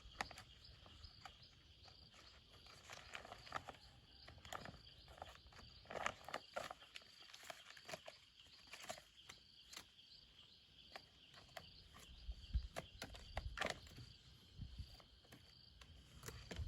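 Faint scattered rustles and clicks over a steady high insect drone, with a few low thumps near the end.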